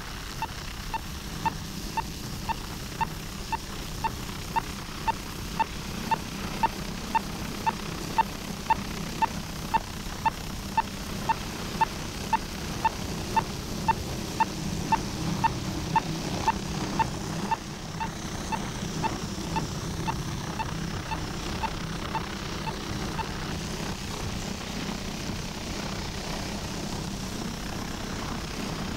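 Hughes 500 helicopter hovering with a steady drone. Over it, a radio-tracking receiver beeps regularly about twice a second, the signal from the transmitter dart in the drugged deer. The beeps stop about two-thirds of the way through.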